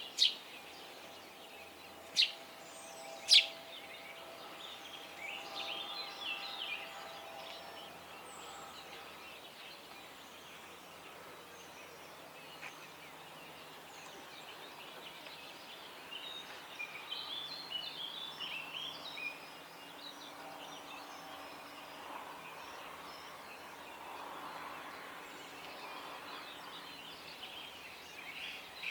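Dawn birdsong by a river: several small birds chirping and twittering, busiest twice in the middle stretch. Three sharp, loud sounds stand out in the first few seconds, over a faint steady low hum.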